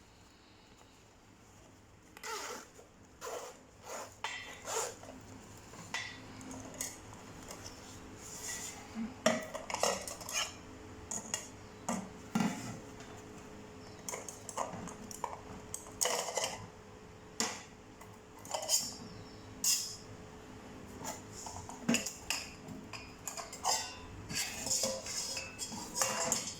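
Metal Sierra-cup camping bowls clinking and clattering against each other as they are handled, in irregular separate knocks that start about two seconds in.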